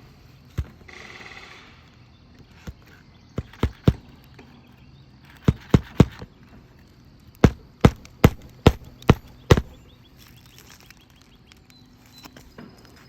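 Hammer driving roofing nails into asphalt shingles: sharp knocks, first singly, then in runs of three, three and six, the last at about two blows a second.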